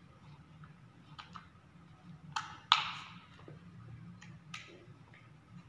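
Small hand screwdriver driving screws back into the plastic housing of an oscillating multi-tool: scattered light clicks and ticks, with two sharper clicks close together just under halfway through.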